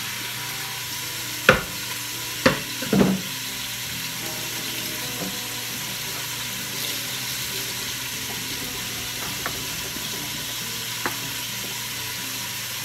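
Sausage and chicken pieces sizzling as they sear in an Instant Pot's inner pot on the sauté setting, a steady hiss. About one to three seconds in come three sharp knocks as the cutting board and spatula strike the pot, and there are a couple of faint ticks later.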